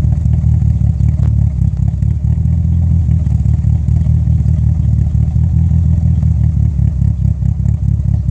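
2G DSM (1995–99 Eclipse/Talon) engine idling unevenly, stumbling irregularly: a misfire at idle that the owner calls a phantom misfire.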